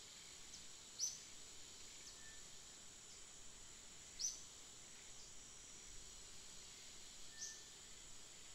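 Faint outdoor ambience: a steady high-pitched insect drone, with three short high chirps about three seconds apart and a few fainter ones between.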